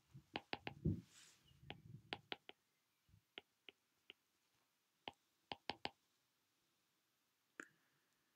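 Stylus tip tapping and clicking on an iPad's glass screen while handwriting: quiet, sharp clicks in small clusters with pauses between, with a few soft low thumps in the first couple of seconds.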